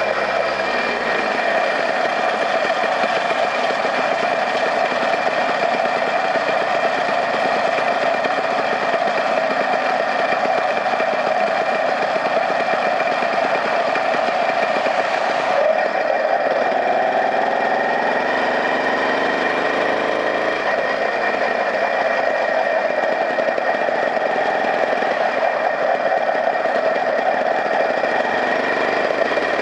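A small vehicle engine running as it travels along the road, with a steady rapid pulse. A little past halfway the sound changes suddenly and the engine's pitch then climbs for several seconds as it speeds up.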